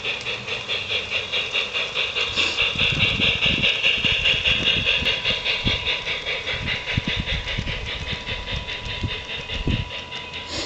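LGB G-scale model train running along garden-railway track: a steady hiss that pulses about three times a second, with faint clicking from the wheels on the rails.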